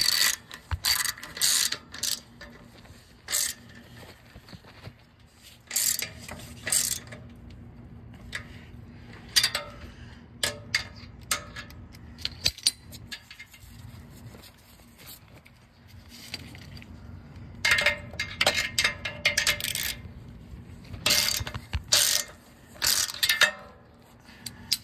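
Hand ratchet with a 14 mm deep-well socket clicking in repeated short bursts of rapid clicks, snugging up the nuts on an exhaust manifold catalytic converter.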